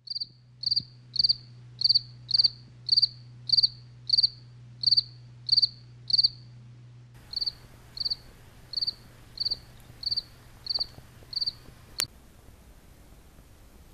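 Cricket chirping, short high chirps repeated evenly about one every 0.6 seconds, over a low steady hum. About halfway through the sound cuts and the chirps go on fainter, and a single sharp click comes near the end.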